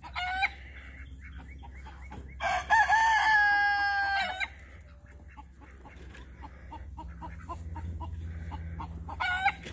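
A rooster crows once, a long loud crow about two and a half seconds in, with short calls just before and near the end and chickens clucking in between.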